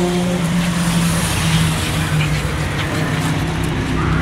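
A steady low mechanical hum with a rumble beneath it, like a motor or engine running.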